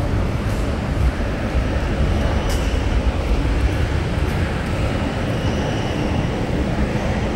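Steady low rumble of subway-station background noise, heaviest in the bass.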